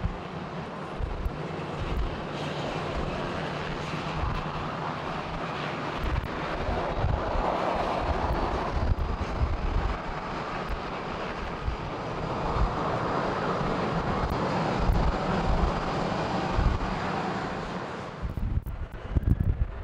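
Steady aircraft engine noise, swelling and easing twice, with a faint high whine in the first half and low gusts of wind buffeting the microphone; it drops away near the end.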